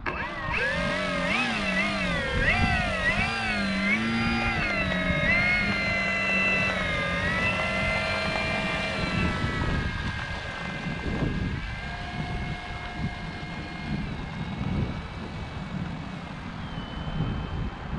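Electric motor and propeller of a Flex Innovations RV8 G2 60E model plane whining, its pitch swinging up and down again and again as the throttle is worked, then settling to a steadier, quieter whine about halfway through.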